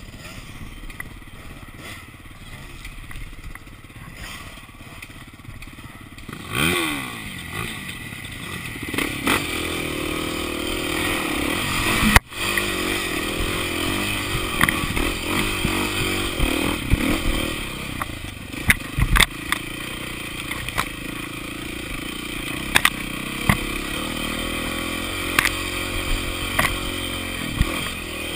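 KTM enduro dirt bike engine, heard from on the bike, running at low revs, then revving up about a quarter of the way in and pulling harder for the rest, rising and falling with the throttle. Sharp knocks and clatter from the bike over rough trail come on top of it, with one loud bang near the middle.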